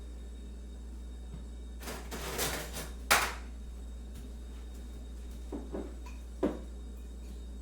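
Kitchenware being handled: a scraping clatter, then a sharp knock of crockery or a utensil about three seconds in and two lighter knocks near the end, over a steady low hum.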